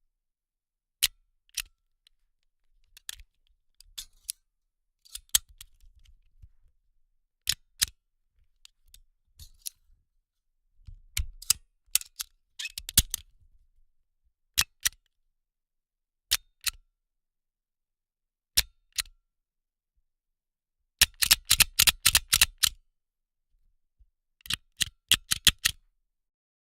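Office stapler stapling paper: a series of sharp clicks, some single and some in quick pairs, with a rapid run of about a dozen clicks late on.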